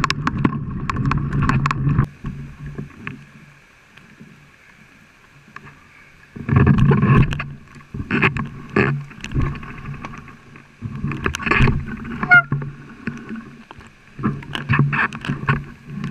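Mountain bike rolling over a dirt trail, heard through the camera mounted on the bike: tyre rumble with frequent rattles and knocks over bumps. It goes quiet for about four seconds some two seconds in, then returns in loud bursts.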